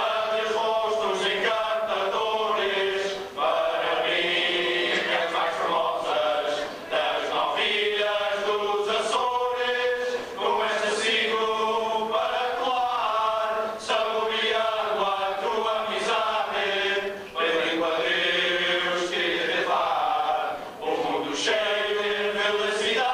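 A group of men singing a Portuguese carnival bailinho song together, phrase after phrase, accompanied by guitars.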